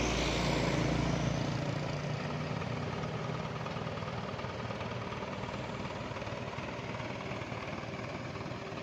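Heavy vehicle's engine running with a low hum that fades over the first couple of seconds, leaving steady background road noise.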